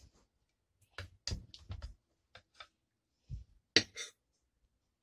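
Metal spoon clinking and scraping against a glass serving bowl and ceramic plate while dahi baray are scooped out of yogurt and set on the plate: a few short, scattered clinks, clustered about a second in and again near four seconds.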